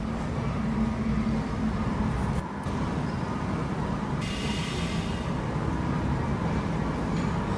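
Steady low rumble of a moving vehicle, heard from inside, with a short hiss a little over halfway through.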